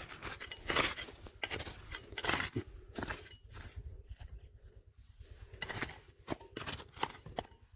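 Irregular scraping and crunching of digging through gravel and soil, stroke after stroke, busier in the first half and thinning out later.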